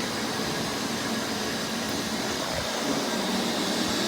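Several Roomba robot vacuums running on carpet, a steady whirring hum.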